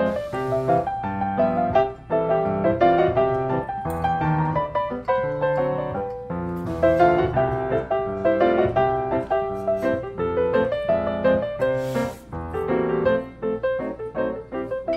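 Background piano music, a quick run of notes without a break.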